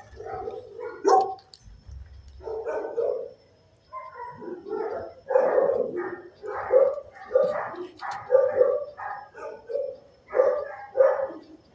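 A dog barking over and over in short, loud barks, a few at first and then a steady run of about two barks a second from about four seconds in.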